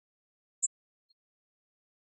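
Near silence: the sound track is dropped out. A single very short, high-pitched blip comes about two-thirds of a second in.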